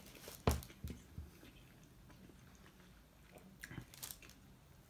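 A person chewing a mouthful of French tacos, a large grilled wrap filled with meat and sauce, faintly, with a few short wet clicks and smacks: the sharpest about half a second in, and a few more near four seconds.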